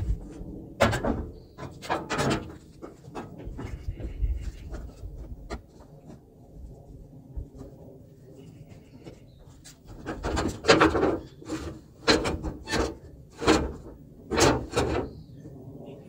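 Metal side panel of a John Deere skid steer being handled and worked on by hand: scattered knocks and scrapes, then a quick run of short scraping and rubbing strokes in the second half.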